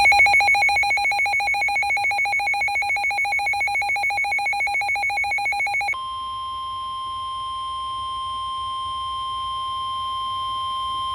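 Electronic alert tones: a rapidly trilling two-pitch alarm for about six seconds, then a steady single-pitch tone near 1 kHz, the NOAA Weather Radio 1050 Hz warning alarm that comes before a warning message is read.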